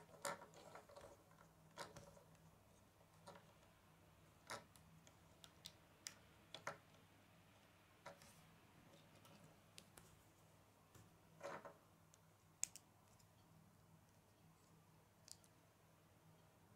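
Small plastic Lego bricks being handled and pressed together, giving faint, scattered clicks and taps with a few short clusters and one sharper snap about three-quarters of the way through.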